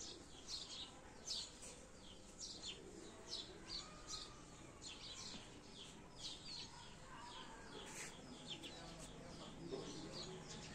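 Small birds chirping: short, high chirps repeating about twice a second.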